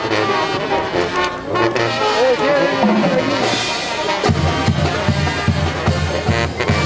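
Band music with brass and drums. About four seconds in, the low drum and bass beat comes in stronger.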